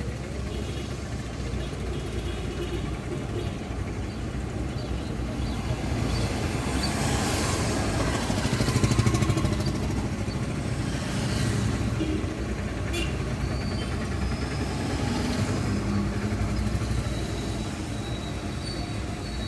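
Road traffic: a steady engine rumble as vehicles pass. One passes close and loud about midway, and a lesser one follows near the end, with a single sharp click in between.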